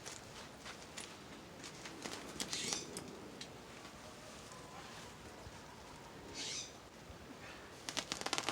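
Handling the inside of a cut-open mattress: brief rustles of padding and fabric with scattered clicks and taps, and a quick run of clicks near the end.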